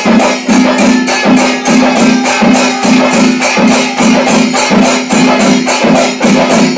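Percussion music with drums and clashing cymbals, playing a steady fast rhythm of about three beats a second.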